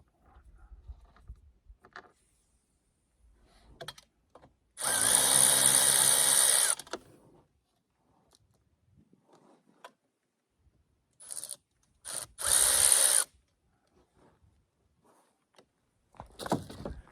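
Cordless electric ratchet running in short bursts on the chainsaw's exhaust bolts: a two-second run about five seconds in, two quick blips, then a run of about a second. Light clicks and knocks of handling come in between.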